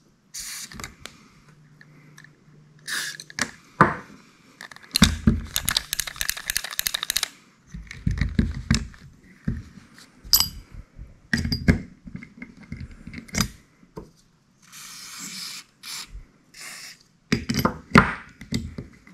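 Spinning fishing reels being handled and oiled: scattered knocks, scrapes and clinks of metal reels on a towel-covered table. There is a rapid run of clicks for about two seconds near the middle, and a short hiss of aerosol oil spray near the end.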